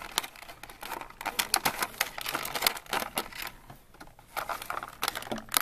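Clear plastic packaging being handled and pulled open, crinkling with a rapid, irregular run of sharp clicks and crackles.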